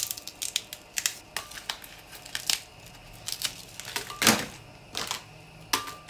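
Dried chiles being snapped, stemmed and torn apart by hand and dropped into a glass blender jar: a string of dry crackles and light clicks, with a louder crunch a little after four seconds in.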